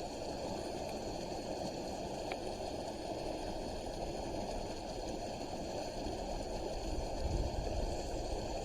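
Creek water rushing steadily over the streambed, running fast. Low buffeting sounds come in near the end.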